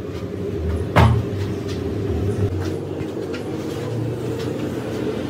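A steady low rumble, like machinery running, with one sharp knock about a second in and a few lighter clicks after it.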